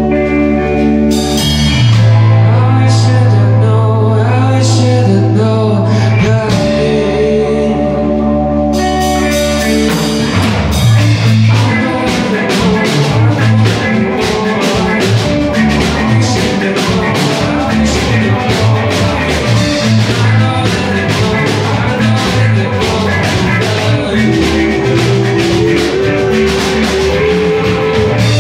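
Live rock band with electric guitars, bass and drums and a male lead vocal. A sparser passage of held bass notes with light cymbal strokes opens out into the full band with steady drumming about ten seconds in.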